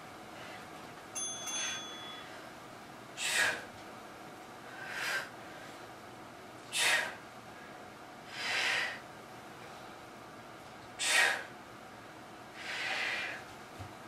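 Hard breathing of a woman straining through dumbbell chest presses: a sharp, forceful exhale every three to four seconds, each followed by a longer, softer breath. A brief ringing ding sounds about a second in.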